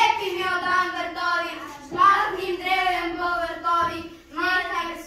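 Children's voices singing a melody in long held notes, the phrases breaking about two seconds in and again near the end.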